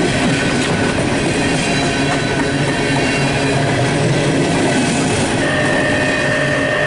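Empty CSX coal hopper cars rolling past: a steady rumble and clatter of steel wheels on the rails, with a thin high wheel squeal coming in about five seconds in.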